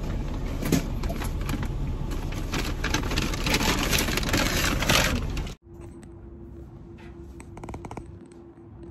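A car's road and engine noise with many light clicks and rattles. It cuts off abruptly about five and a half seconds in, leaving a quiet room with a steady low hum and a few soft clicks.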